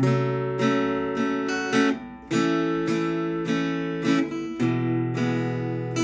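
Acoustic guitar strummed in a steady rhythm, starting suddenly and changing chord every couple of seconds, with no singing.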